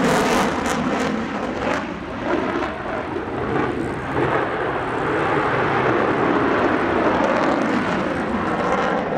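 P-51 Mustang's liquid-cooled V-12 Merlin engine running at low power as the fighter taxis, a steady propeller-engine drone.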